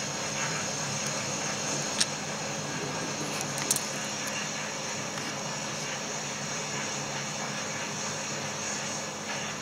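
Steady hiss with a low hum, broken by two brief clicks, one about two seconds in and one near four seconds in.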